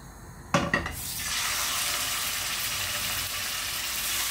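A short knock about half a second in, then salmon pieces laid into hot oil in a non-stick frying pan start to sizzle about a second in, a steady even hiss that carries on.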